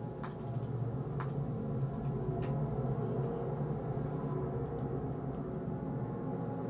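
A low, steady humming drone, with a few faint clicks in the first couple of seconds.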